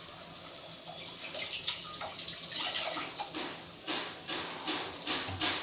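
Fried rice cooking in a steel pan over a gas flame: a steady sizzle that grows louder about halfway, with a run of short sharp crackles.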